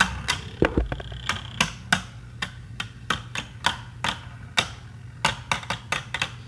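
Two Beyblade Burst spinning tops clashing in a plastic stadium: quick, irregular clacks as they hit each other, several a second, over a steady low hum.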